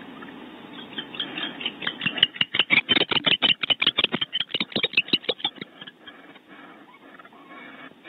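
Barn owl close to the nest-cavity microphone, making a rapid run of sharp scratchy clicks, about seven a second. The run starts about a second in, is loudest around the middle and dies away near six seconds.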